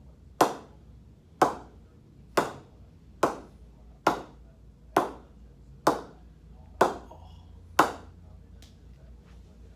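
An SG cricket bat's willow face being struck with sharp knocks, about one a second, each ringing briefly; nine strong knocks, then a fainter one near the end.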